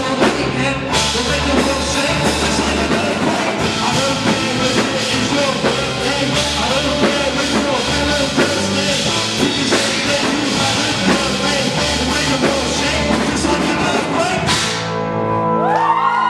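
Rock song with singing, electric band and drum kit playing. About fourteen and a half seconds in the drums and band stop, leaving a few held notes that bend in pitch as the song ends.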